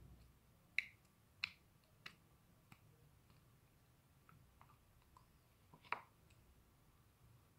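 Near silence broken by a few faint, sharp clicks and pops at irregular intervals, the loudest a little before the end.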